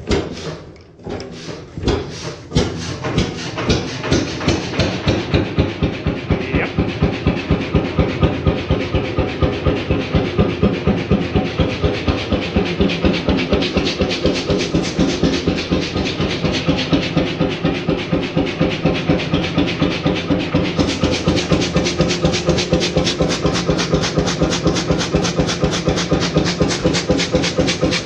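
1928 Beijer 13 hp single-cylinder two-stroke hot-bulb oil engine picking up from its rocking 0 RPM run as its fuel pump is turned up: a few separate firing thuds at first, then a regular beat of firing strokes that quickens over the first few seconds and settles into a steady running rhythm.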